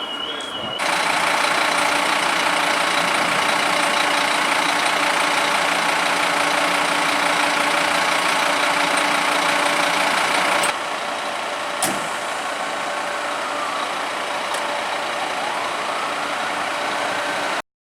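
Fire truck engine running steadily, a loud even noise. It drops to a lower level about eleven seconds in, with a single sharp click soon after, and a faint tone rises and falls a couple of times before the sound cuts off suddenly near the end.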